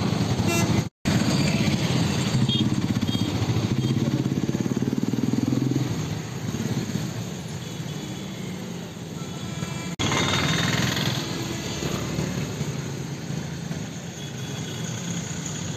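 Road traffic: motorcycle and vehicle engines passing over a steady noisy rush, one engine rising in pitch about five seconds in. The sound drops out briefly about a second in.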